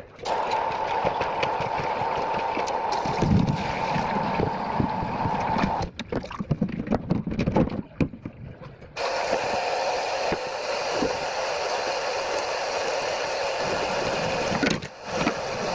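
Water running steadily, as from a tap, which stops about six seconds in. A few seconds of clattering and knocks follow, then the water runs again until shortly before the end.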